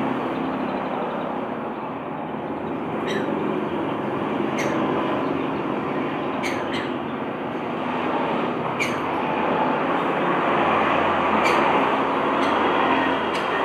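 A lovebird gives about seven short, sharp chirps that each sweep quickly downward, spaced irregularly over a loud, steady rushing noise that drowns most of the rest.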